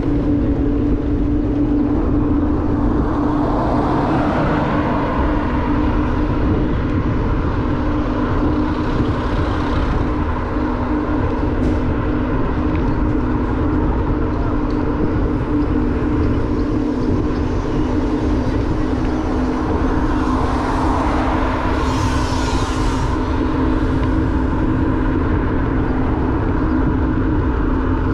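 Motorbike engine running steadily at cruising speed, with heavy wind rumble on the microphone while riding. The noise swells briefly a few times, around 4, 9 and 22 seconds in.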